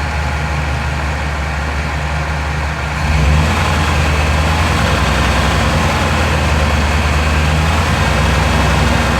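A 2000 Chevy Tahoe's 5.7-litre Vortec V8 idling, then brought up to a steady higher speed of about 1,000 rpm about three seconds in. It is running on a newly installed distributor while the cam retard is set to zero.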